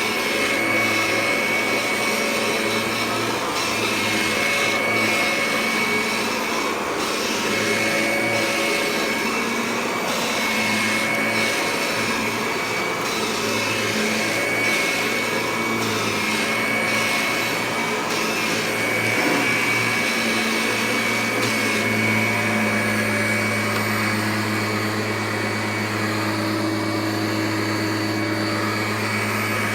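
Kirby Ultimate G upright vacuum cleaner running steadily while vacuuming. Its high motor whine wavers in level over the first part and holds steady near the end.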